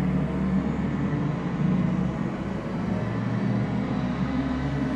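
Edited-in background soundtrack: a steady low rumbling drone that sounds engine-like, with no speech.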